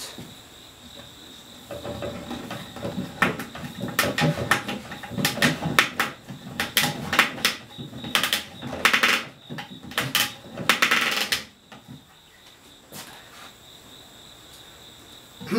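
Dry, unglued wooden chair spindles being twisted by hand in tight holes in the wooden seat, the wood squeaking and creaking in a quick run of short rasping strokes that stops about 11 seconds in. A steady high insect trill runs underneath.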